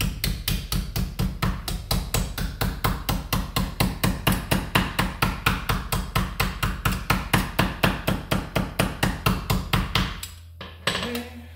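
Small hammer tapping thin 28-gauge tin sheet over a form in a bench vise, bending the lip of a soldered tin sleeve, in a fast, even run of about five blows a second. The tapping stops about ten seconds in, followed by one sharp click.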